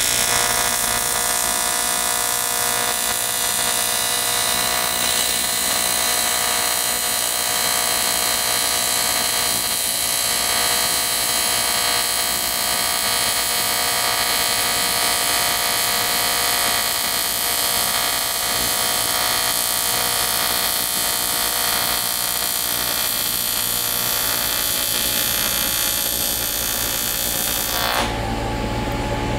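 AC TIG welding arc on aluminum buzzing steadily as a bead is laid. The arc cuts off near the end, leaving a low steady hum.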